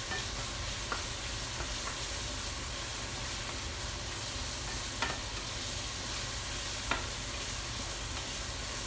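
Ground beef sizzling as it browns in a frying pan, with the range-hood vent fan running steadily underneath. A spoon clicks against the pan a few times, about one, five and seven seconds in.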